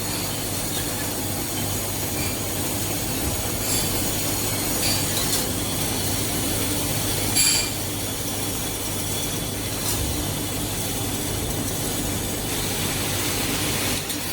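CNC indexing-plate triple riveting machine running: a steady motor hum with irregular sharp metallic clicks and clunks from its riveting and indexing strokes, the loudest about seven seconds in.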